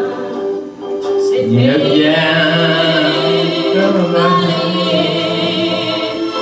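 Recorded vocal music: singing voices holding long notes with vibrato, with a short break in the sound about a second in.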